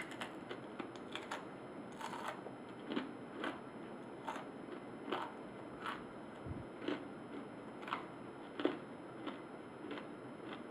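Chewing on a small whole roasted crab, its hard shell crunching between the teeth in irregular, short crunches, roughly one or two a second.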